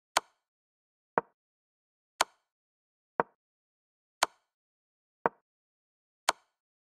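Chess-board move sound effects from the game replay: a short, sharp piece-placement click about once a second, seven in all, each marking a move played on the board. The clicks alternate between a brighter and a duller tone.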